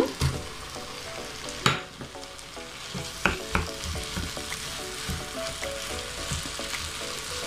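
Tomato, capsicum and pea mixture sizzling in a non-stick pan as mashed boiled potatoes are tipped in and stirred with a wooden spatula. One sharp knock comes about two seconds in, and a few lighter knocks of the spatula follow during the stirring.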